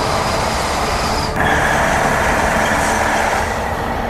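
E5 Series Shinkansen high-speed train passing at speed: a loud, steady rushing noise. It changes abruptly about a second in and becomes brighter.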